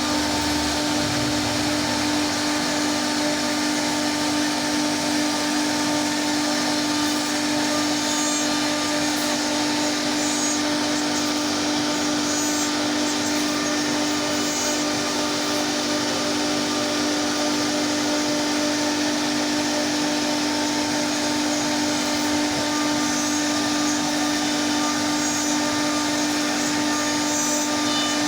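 CNC wood router carving a wooden door panel: the spindle runs at a steady pitch under a continuous hiss of the bit cutting wood.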